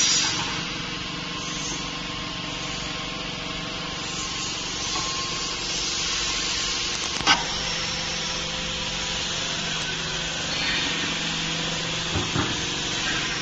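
Vacuum fryer machinery running steadily, a hiss over a layered mechanical hum. There is a sharp click about seven seconds in and a few light knocks near the end.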